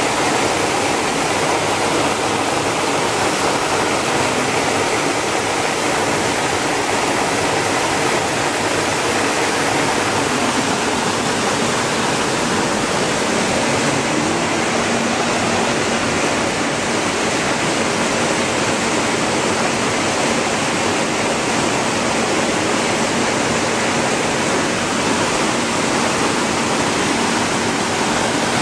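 Steady, even rushing noise of a running watermelon-seed color sorting line, with its machinery running and seeds streaming through. A faint steady hum joins about halfway through.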